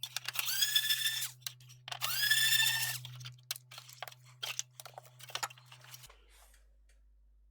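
Screw-removal work on a keyboard: two short pitched whines, each rising at the start and then holding for about a second, followed by a scatter of light clicks and taps from small screws and parts. A steady low hum runs underneath and stops near the end.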